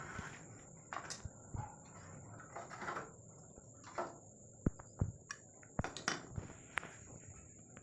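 Irregular metallic clinks and knocks of small tools and parts being handled, spaced unevenly through the few seconds.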